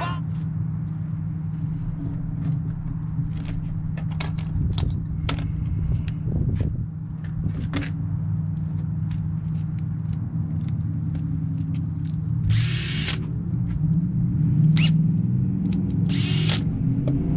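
Handheld power tool running steadily, with scattered clicks and taps and two short, louder bursts of hiss, the first about two-thirds through and the second near the end.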